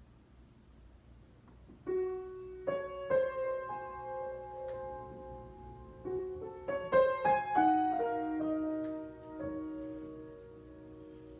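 Solo piano improvisation. After about two seconds of quiet, single notes and chords are struck and left to ring, with a quicker, louder group of notes around the middle before they die away.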